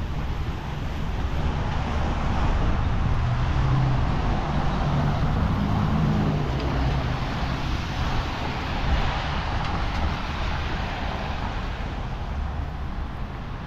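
Road traffic: a vehicle going past, its engine and tyre noise building over the first few seconds and easing off after about eight seconds, over a steady street hiss.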